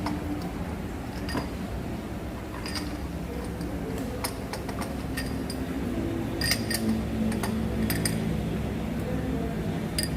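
Hand tools and small metal parts clinking sharply over a steady low hum, in scattered taps bunched toward the second half: work on the engine's spark plugs.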